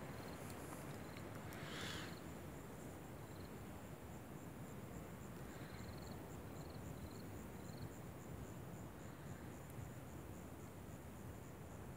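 An insect stridulating: a steady, high-pitched train of rapid even pulses, with a few short rising chirps now and then.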